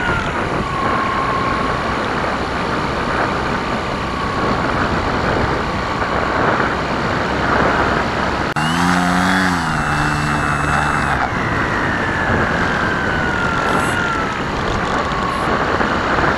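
Electric motor and propeller of an FPV Spanner RC plane whining over steady wind rush, heard from its onboard camera. The pitch follows the throttle: it drops at the start, jumps up about halfway through, sinks slowly, and climbs again near the end.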